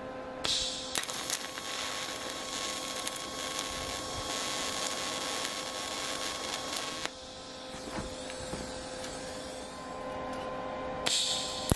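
TIG welding arc on steel, joining threaded nuts together: a steady hiss with a faint whine. It is struck about half a second in, stops about seven seconds in, and is struck again near the end.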